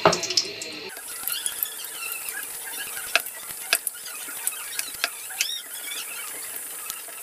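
Puri deep-frying in hot oil in a karai. There is a steady sizzle starting about a second in, scattered sharp crackles and pops, and a few short high chirps from the bubbling oil.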